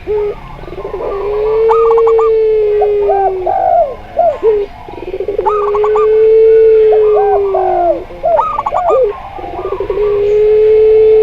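Several doves cooing together: a zebra dove, a spotted dove and a puter pelung dove. Three times, a long drawn-out coo is held for about three seconds. It is overlapped by quick fluttering higher notes and shorter curved coos.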